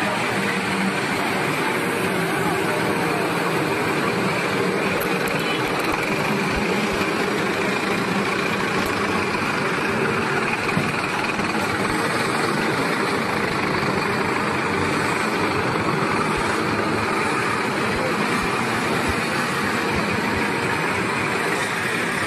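Steady street noise from motor vehicles, engines running close by, with no distinct events.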